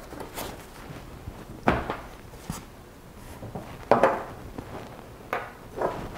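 Unboxing handling noise: a foam packing insert being lifted out of a cardboard box and plastic parts set down on a table. There are several knocks, the loudest about four seconds in.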